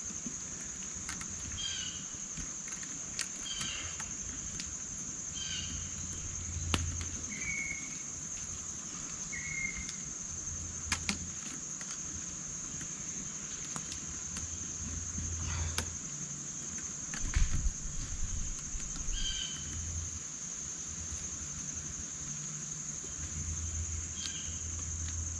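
Steady high-pitched drone of insects in the woods, with short bird chirps now and then. Scattered sharp clicks and intermittent low rumbles, loudest in a cluster of thumps about two-thirds of the way through.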